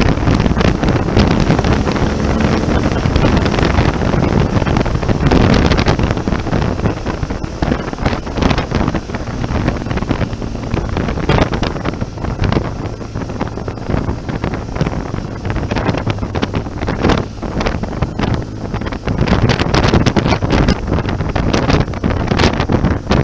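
Heavy wind buffeting on the microphone of a BMW motorcycle-mounted camera at road speed, gusting unevenly, with the motorcycle engine's low steady drone beneath.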